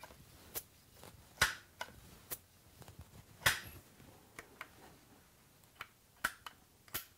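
Benjamin 312 multi-pump air rifle being pumped by hand: the pump arm swings open and closed several times, giving a series of sharp clicks and clacks, the loudest about one and a half and three and a half seconds in. The rifle is taking air again, its seals holding after an alcohol flush.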